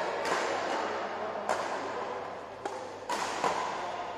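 Badminton rackets striking a shuttlecock in a rally: about four sharp hits roughly a second apart, over the steady background noise of a sports hall.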